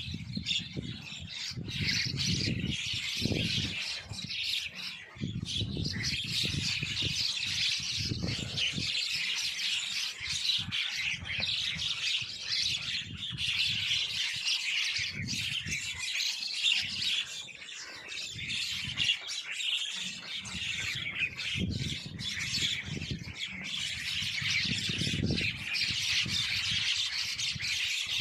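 A dense, unbroken chorus of many birds chirping and squawking together. A low rumble comes and goes underneath it.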